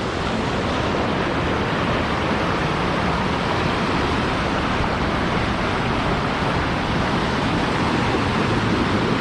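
Waterfall rushing steadily: an even roar of falling water with no breaks.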